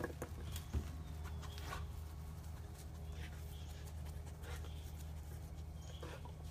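Faint taps and scuffs of a dog's paws and claws on a plastic raised dog bed and concrete as the dog climbs down and searches, with a small thump near the start, over a low steady hum.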